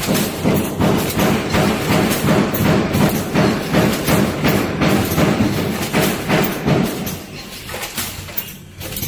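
Rotary premade-pouch packing machine running, a dense rapid clatter of knocks and clicks that thins out near the end.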